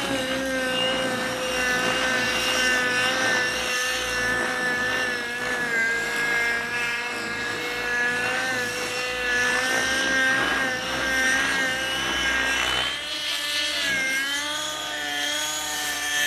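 Radio-controlled model helicopter in flight: a steady high whine from its motor and rotors, its pitch wavering in the last few seconds.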